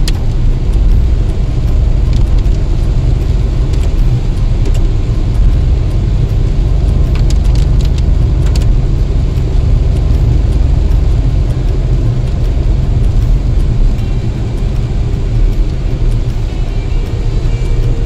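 Car interior noise while driving on a wet road: a steady low rumble of engine and tyres, with a few faint ticks midway.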